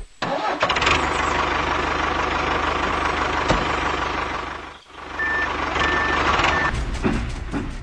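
Heavy-vehicle engine running steadily, with a reversing alarm beeping three times in the second half.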